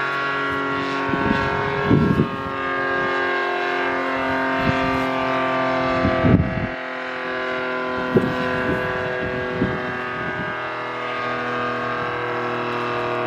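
ACA Screamer S-10 electric warning siren sounding a steady, unwavering multi-note tone. Its top lid is broken out and sucked down, starving the rotor of air, and its motor is reverse-wired; the owner says this keeps it from being very loud. A few short low thumps break in, the loudest about two and six seconds in.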